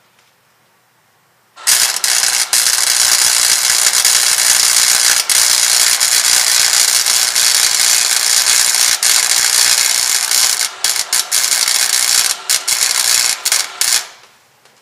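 Wire-feed welder arc crackling steadily while welding a truck exhaust, one continuous bead of about twelve seconds starting about two seconds in. It breaks into short stuttering starts and stops near the end before cutting off.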